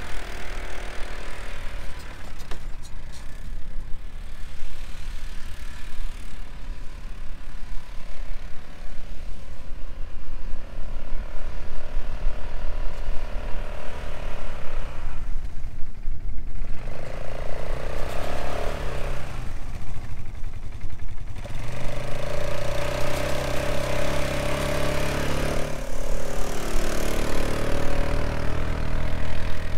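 Polaris Sportsman 570 ATV's single-cylinder engine running and revving up and down under load as the ATV, rear tyres chained, pushes through deep crusted snow towing a loaded sled.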